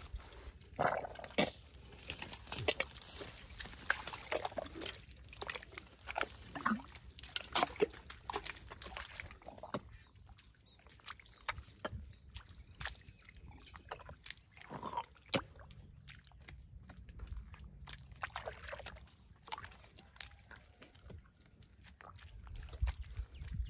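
Bare feet squelching and sucking in soft, wet mangrove mud as a man walks, with irregular wet pops and clicks.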